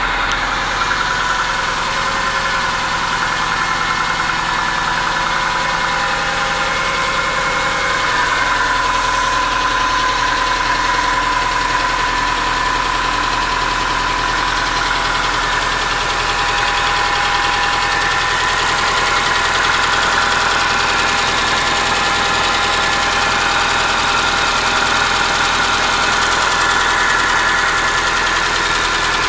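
1998 Subaru Forester's flat-four engine running steadily with a knock, which the owner traces to cylinder four.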